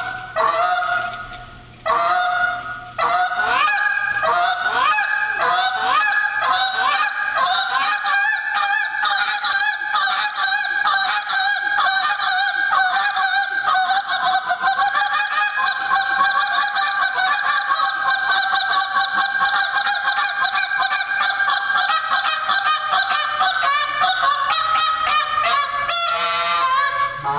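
A goose call being blown in a competition calling routine. Two separate honks come first, then from about three seconds in an unbroken, fast run of short clucking notes, several a second, that breaks into a few rising notes near the end.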